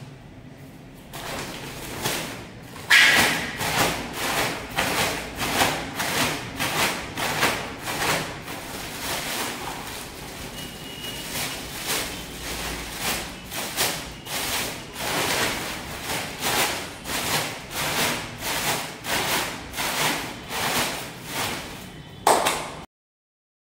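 Dry wall putty powder being tipped and shaken out of its bag into a bucket of water, with a steady run of rustling, scraping strokes about two a second and a couple of sharper knocks.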